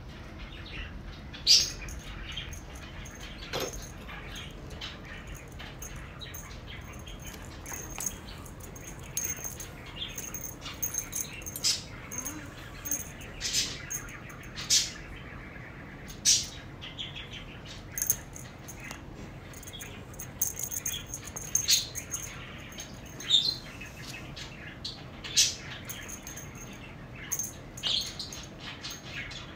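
A kitten playing with a string wand toy on a rug: a scatter of short scuffs and swishes from paws and toy, with brief high chirping notes among them.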